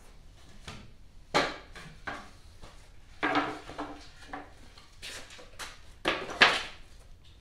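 Wooden clatter and knocks from a light crate frame of thin pine slats being lifted off a shipping pallet and carried away, a few separate sharp knocks with the loudest pair about six seconds in.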